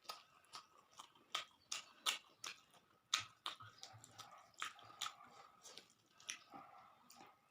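Close-miked chewing and lip-smacking of a mouthful of rice mixed with fish curry and potato: a run of sharp, wet mouth smacks, about two to three a second.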